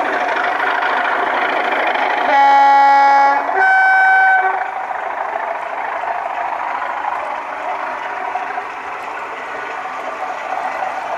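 A DCC sound decoder in a model diesel train sounds a two-tone horn: a lower note, then a higher one, each about a second long, about two seconds in. Underneath runs the steady noise of the model train moving along the track.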